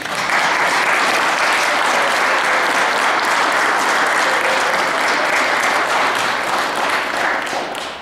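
A crowd of guests applauding: dense clapping that starts abruptly and tails off near the end.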